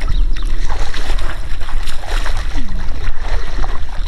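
Tractor diesel engine running steadily, mixed with mud and water splashing as the wheels churn in a flooded field.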